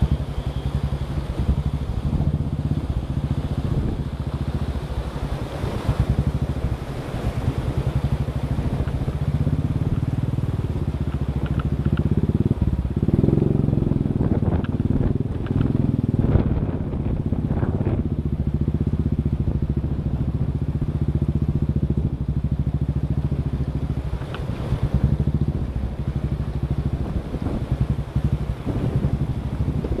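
Motorcycle engine running steadily as the bike is ridden, a little fuller in the middle stretch.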